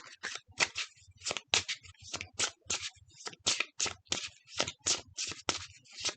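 A deck of tarot cards shuffled by hand: quick papery swishes, about four or five a second, going on throughout.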